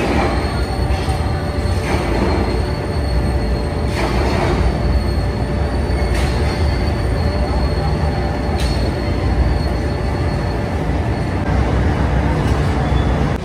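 Steady loud drone of factory machinery with a low rumble and a thin high whine that fades out near the end, with a few sharp metal knocks.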